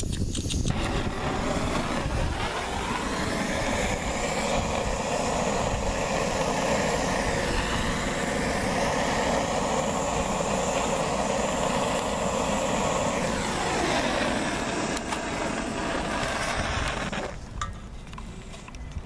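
Handheld gas blowtorch running with a loud, steady hiss, its flame held to the waste-oil burner's tray to light the oil. It starts under a second in and is shut off about 17 seconds in.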